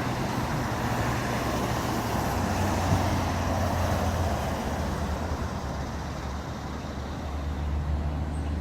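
A motor vehicle engine running steadily, a low hum under a broad even hiss of road-type noise.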